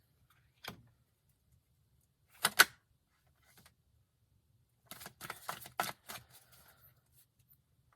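Tarot cards being handled while a clarifying card is drawn: a sharp double snap about two and a half seconds in, then a quick run of card clicks and flicks around five to six seconds in.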